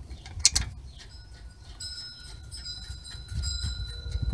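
Hands fitting a brake caliper bolt by hand: a sharp metallic clink about half a second in, then light handling noise and faint ticks, with thin steady high tones underneath.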